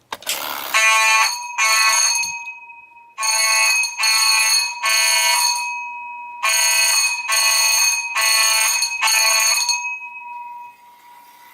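Coded fire alarm sounding code 2-3-4: after a brief burst of noise at the start, two pulses, a pause, three pulses, a pause, then four pulses. Each pulse leaves a ringing tone that fades out.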